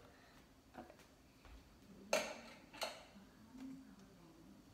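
Quiet room tone broken by two light, sharp clicks about two seconds in, under a second apart, with a fainter knock just before.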